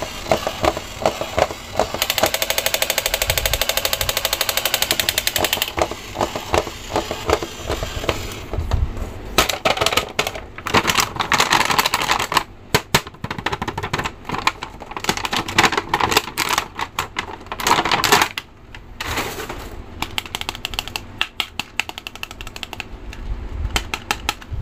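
Plastic blister packaging crinkling and crackling as a battery-operated toy is pulled out of it by hand. Early on there is a few seconds of fast, even clattering.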